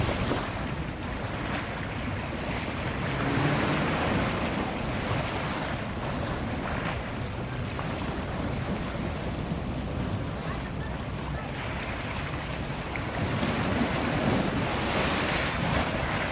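Harbor waves washing against the shore, with wind buffeting the microphone. The wash swells louder about three to four seconds in and again near the end.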